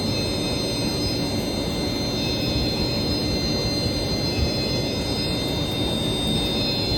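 Steady, loud machinery din of an electronics-factory production floor, with several constant high-pitched whines over a dense running noise.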